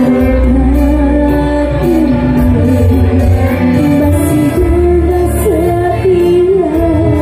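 Live band music: a woman sings a gliding melody into a microphone over electric keyboard and electric guitar, with a heavy bass line, all amplified through loudspeakers.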